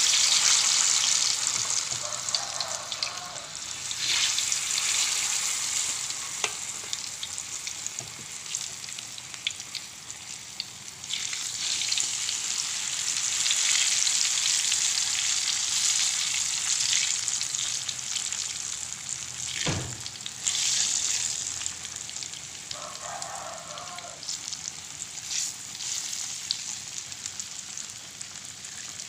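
Boiled cassava chunks deep-frying in hot oil in a wok: steady sizzling that swells and fades several times. A single sharp knock about two-thirds of the way through.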